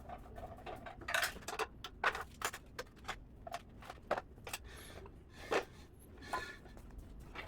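Irregular clicks and light knocks of parts being handled and fitted while a steel rolling tool cart is put together, with a few brief ringing taps.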